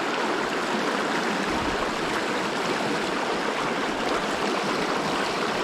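Small rocky river running, a steady rush of water over the stream bed.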